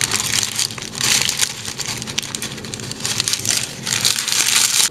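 Baking paper crinkling and crackling as a baked fish parcel is pulled open by hand, in several bursts of rustling.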